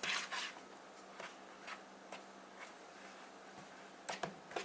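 Faint kitchen handling noises: a soft scrape at the start, a few light clicks, then a couple of soft knocks near the end, as a dough bowl and utensils are handled.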